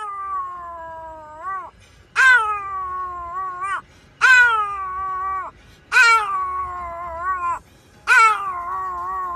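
A Pomeranian howling: five drawn-out howls about a second and a half each, with short gaps between them. Each begins sharply, slides down in pitch and curls upward at the end.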